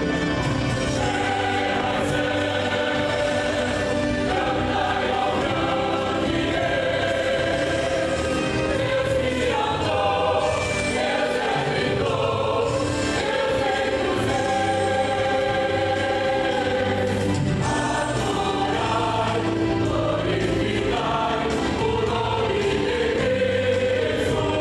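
A youth choir singing a gospel song with instrumental accompaniment, with held chords that shift steadily.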